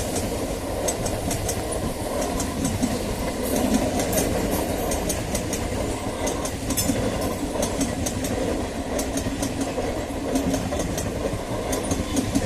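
Suburban EMU local train running along the track: a steady rumble of wheels on rail, broken by many short, sharp high-pitched clicks and ticks from the wheels and rails.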